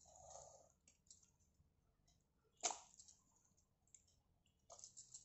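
Faint handling sounds of wet banana stem slices being moved from a steel bowl into a pan: a few soft clicks and knocks, the sharpest about two and a half seconds in, and a short cluster of clicks near the end.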